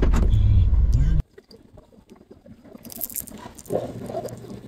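Low rumble inside a car's cabin that cuts off abruptly about a second in, followed by the quiet of a restaurant dining room with faint clatter and a brief jingling rustle near the middle.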